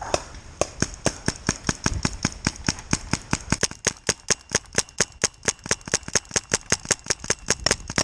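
Paintball marker firing a long, even string of shots, about five a second.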